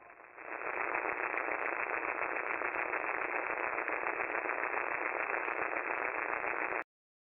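AM radio static: a steady, narrow, tinny hiss with faint crackles. It swells in about half a second in and cuts off abruptly near the end.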